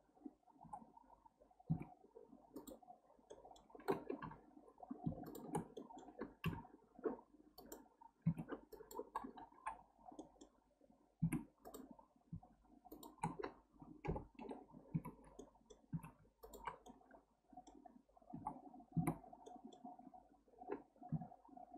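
Irregular clicks of a computer mouse and keyboard as the modeller works, several per second at times, over a faint steady hum.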